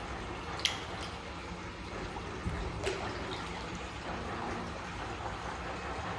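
Tank water splashing and sloshing as alligator gars and redtail catfish strike at chicken at the surface, with two sharp splashes, one under a second in and another about three seconds in.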